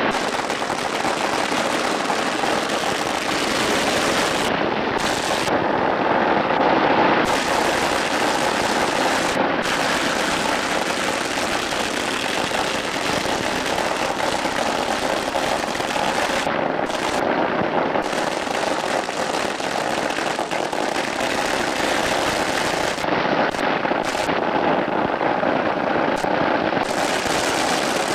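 A long string of Chinese firecrackers going off in a continuous, dense, rapid crackle, with no break.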